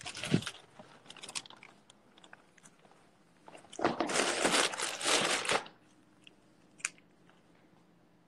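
Close rustling and crunching handling noise on the phone's microphone, with a few sharp clicks; a louder, longer stretch of rustling starts about four seconds in and lasts about a second and a half.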